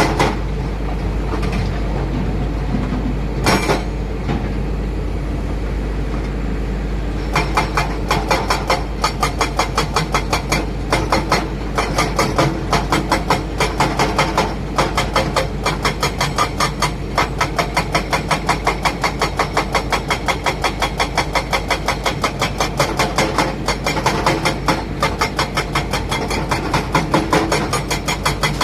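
Heavy diesel engines of a working excavator and dump truck running steadily with a low hum. From about seven seconds in, a rapid, even clatter of pulses joins, with a single knock a few seconds earlier.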